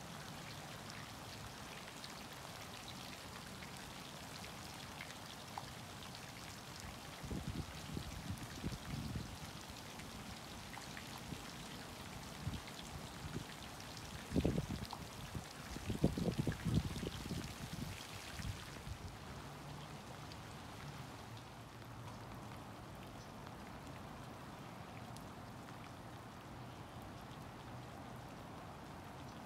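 Light rain falling: a steady, fairly faint hiss of drops that thins out about two-thirds of the way through. Low rumbles come and go about a quarter of the way in and again around the middle; these are the loudest moments.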